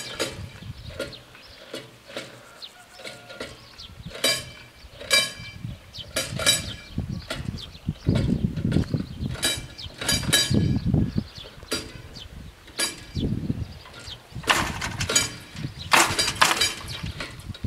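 Level-crossing warning bell ringing in irregular clusters of short metallic strikes, warning that the barriers are about to come down. A low rumble rises under it around the middle.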